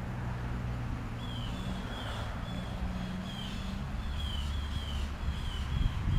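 A bird repeating short high chirps, about two a second, starting about a second in, over the low steady hum of a motor vehicle.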